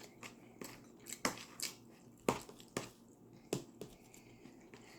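Close-miked eating: someone chewing food, with irregular sharp crunches and clicks, about eight over a few seconds.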